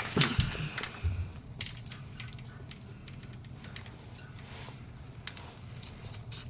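Faint scattered clicks and light rubbing of hands working a rubber exhaust hanger as it is lubricated, with a few sharper handling sounds in the first second over a steady low hum.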